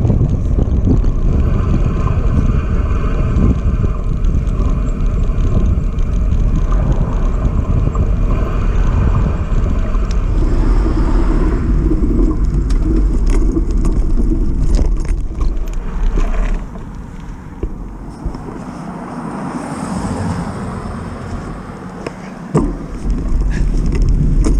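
Wind buffeting the microphone of a camera riding on a moving bicycle, with tyre rumble and scattered rattles over a rough lane surface. The rush drops a good deal about two-thirds of the way through and comes back near the end.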